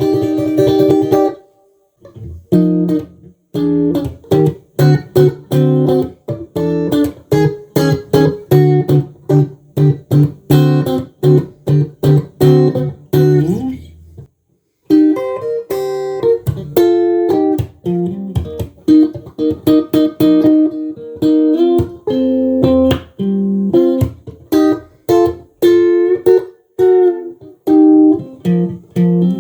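Tomson Spirit Sounds Stratocaster-style electric guitar being played: a quick run of picked notes and short chords, with a brief break about a second and a half in and another about halfway through.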